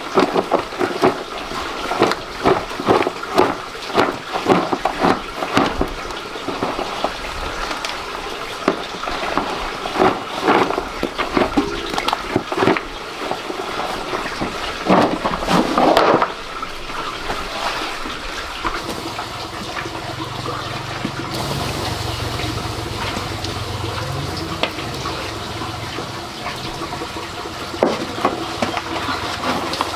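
Water running and splashing, with many irregular knocks and clatters in the first half, settling into a steadier rush with a low hum over the second half.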